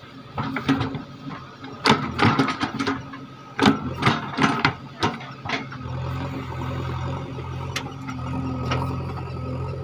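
JCB 3DX backhoe loader's diesel engine running under load, with a run of sharp metallic knocks and clanks from the digging gear over the first half. After that the engine note settles into a steadier, louder drone.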